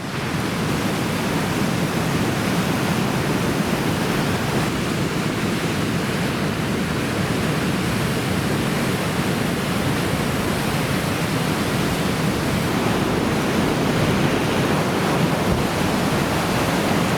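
Large typhoon-driven ocean surf: a steady roar of breaking waves and white water.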